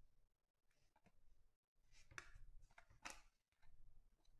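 Faint handling of Donruss Optic football trading cards: a few soft slides and clicks as cards are flipped, over near silence.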